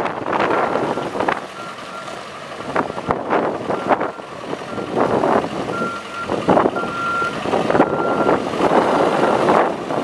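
Cat 420F backhoe loader being driven, its diesel engine running while the reversing alarm beeps a single high tone over and over.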